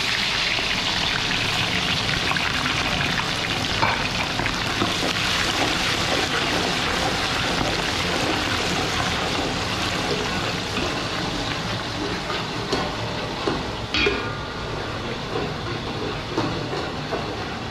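Sliced onions sizzling in hot oil in a large aluminium pot, stirred with a ladle: a steady, dense frying hiss that eases a little in the second half. A few sharp metal clinks, the clearest about 4 and 14 seconds in.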